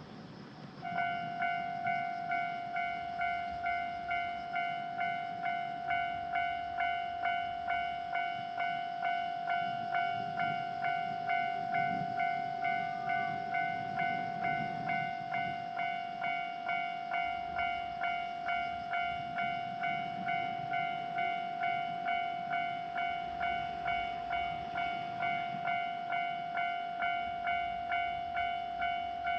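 Japanese railway level-crossing alarm ringing, a steady pitched ding repeating about twice a second, starting about a second in.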